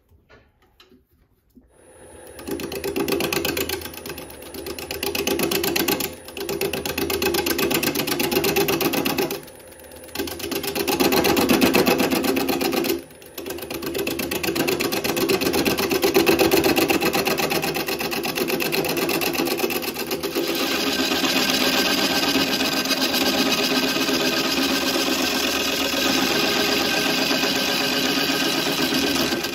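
A gouge cutting into a birch log spinning on a wood lathe, roughing the log down; the cutting starts about two seconds in. It breaks off briefly a few times in the first half, then runs steadily and harsher through the second half.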